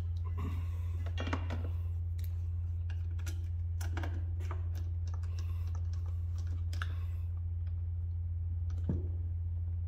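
Scattered small clicks and taps as a refrigeration hose's fitting is handled and threaded onto a vacuum pump's port, over a steady low hum.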